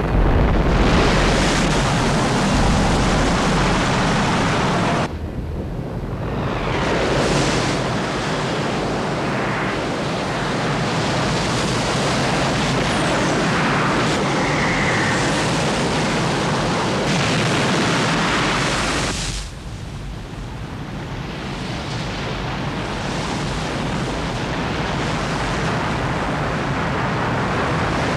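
Loud rushing noise of a huge ocean wave, a film's tsunami sound effect. It drops suddenly about five seconds in and again near twenty seconds, then builds back up each time.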